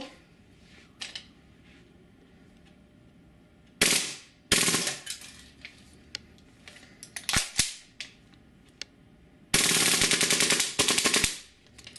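WE KAC PDW gas blowback airsoft gun firing on full auto in bursts of rapid shots. Two short bursts come about four seconds in, a few quick volleys follow around seven seconds, and a long burst of about two seconds comes near the end.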